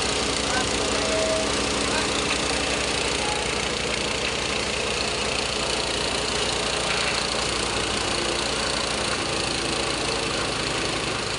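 Grinding mill for galangal and corn running steadily: a motor-driven drone under a dense, even noise with no break.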